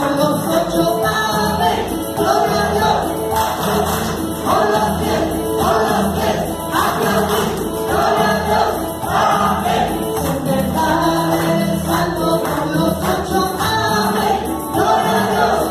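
Live Catholic praise song: a woman sings into a microphone with other voices joining in, over keyboard accompaniment played through PA speakers.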